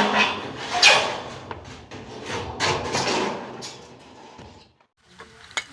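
A series of loud bangs and rattles, like a door or loose sheets being knocked about, strongest in the first second and dying away about four and a half seconds in.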